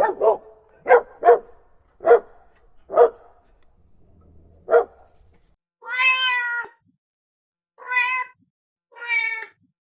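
A dog barking about seven times in short, uneven bursts, then a domestic cat meowing three times, the first meow the longest.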